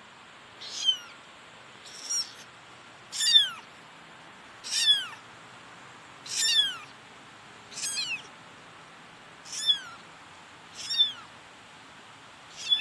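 Very young kitten meowing: nine short, high-pitched cries, each falling in pitch, about one every second and a half.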